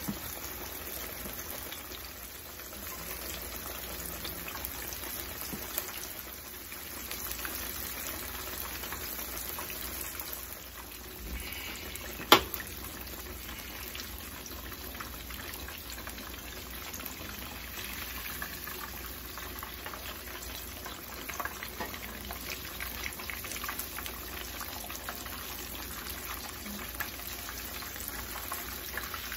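Breaded catfish fillets deep-frying in hot oil in a skillet: a steady bubbling crackle, with one sharp click about twelve seconds in.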